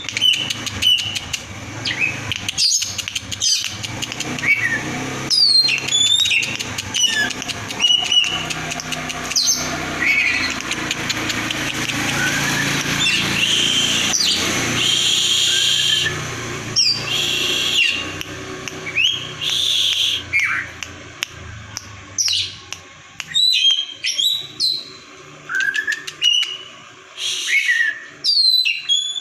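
Oriental magpie-robin (kacer) singing loudly in a fast, varied stream of whistled notes, sharp upward and downward sweeps and chattering phrases, the jumbled 'konslet' style of a fighting bird. The song is densest in the middle and breaks into separate bright phrases near the end.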